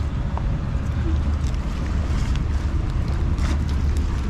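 Wind buffeting the microphone: a steady low rumble with a hiss over it. A few faint taps of slide sandals stepping on concrete.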